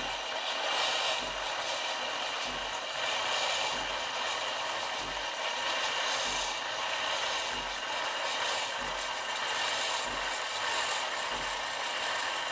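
Vitek VT-1514 BK espresso machine running its automatic double-cappuccino cycle: a steady hiss, with a low pulse repeating about every second and a quarter.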